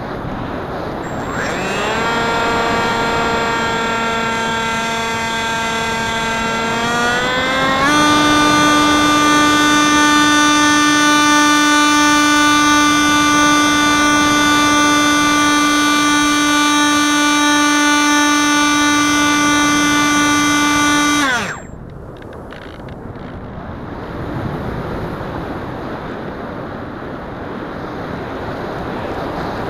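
Electric motor and propeller of a Wing Wing Z-84 flying wing whining under throttle, heard from the onboard keychain camera with wind rushing over it. The whine rises about two seconds in, steps up in pitch around eight seconds and holds steady, then winds down sharply past twenty seconds as the motor is throttled off, leaving only wind noise.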